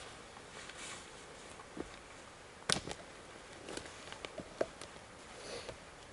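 A few scattered sharp snaps and cracks of dry twigs and forest litter, the loudest about three seconds in, then a short run of smaller snaps.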